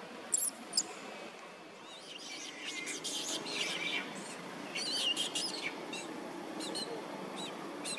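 Birds chirping: two quick, very high calls in the first second, then clusters of short, wavering chirps.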